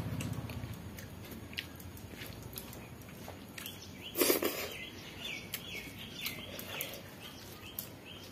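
Eating by hand: wet mouth sounds and chewing of rice and dal, with scattered small clicks and one loud smack as a handful goes into the mouth about four seconds in, followed by a run of short, high chirps.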